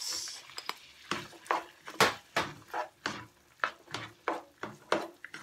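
Black plastic spatula stirring diced carrots into diced ham in a nonstick frying pan: a quick run of scrapes and knocks against the pan, about three a second. A short sizzle comes at the start as the carrots go in.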